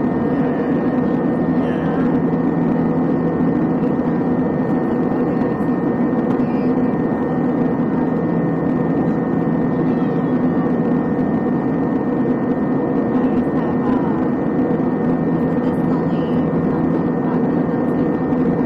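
Airbus A321 cabin noise in flight: a steady drone of engines and airflow, with a constant hum running through it.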